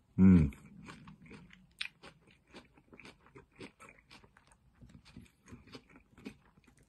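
A person chewing a mouthful of coleslaw close to the microphone: soft crunching and wet clicks a few times a second. A short, loud hummed "mm" comes just after the start.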